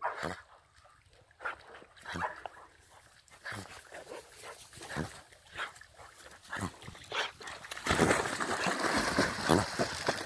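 A pointer dog giving short, excited, whimpering cries at irregular intervals. About eight seconds in, loud splashing takes over as a pointer plunges into the water and swims.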